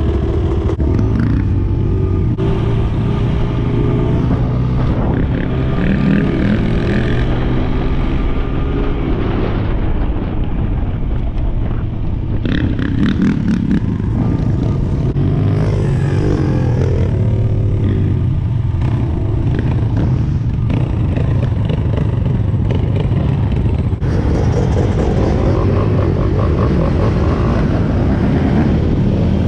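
Dirt bike engine running under way, its pitch rising and falling again and again as the rider revs and shifts through the gears, with other dirt bikes and ATVs running close by.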